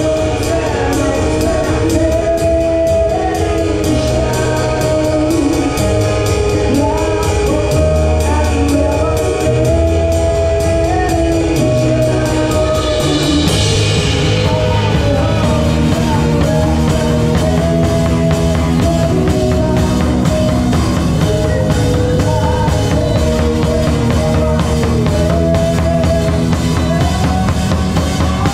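Live band playing a cover song, heard from right beside the drum kit: drums with a steady fast cymbal pulse and bass notes underneath a sung melody.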